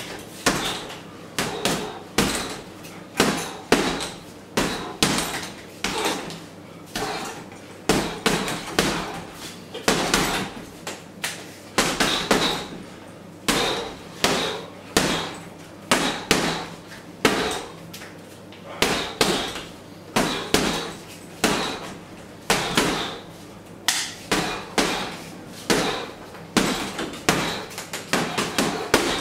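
Boxing gloves striking a hanging heavy punching bag, punches landing in quick combinations of two or three with short gaps between.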